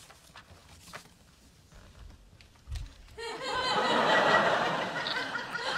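Studio audience laughter from a sitcom laugh track, breaking out about three seconds in and swelling, after a few faint clicks and rustles of handling.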